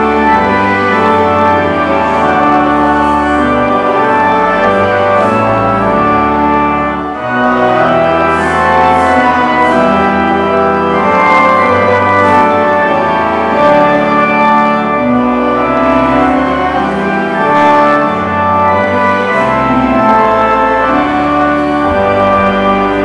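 Church organ playing a hymn in full, held chords, with the bass notes moving every second or so.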